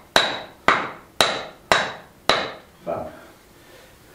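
Hammer tapping something in: five sharp, ringing blows about two a second, then it stops.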